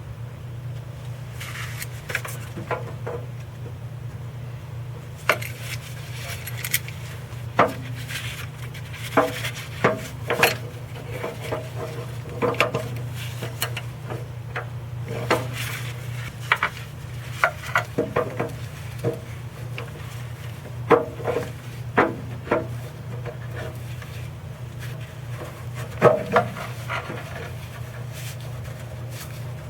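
Irregular metallic clinks, knocks and scrapes of hand tools working the oil dipstick tube adapter fitting and nut, over a steady low hum.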